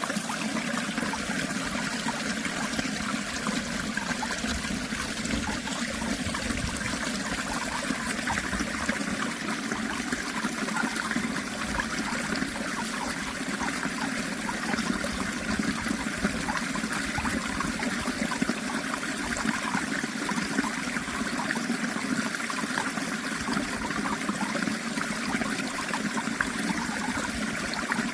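Natural flowing water, steady and unbroken, running and trickling like a stream.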